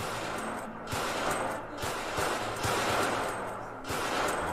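Rapid, repeated gunfire from a handgun, a comedy skit's sound effect, cutting off suddenly at the end.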